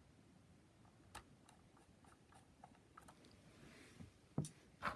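Near silence: room tone with a few faint, scattered clicks and small taps, the clearest two near the end.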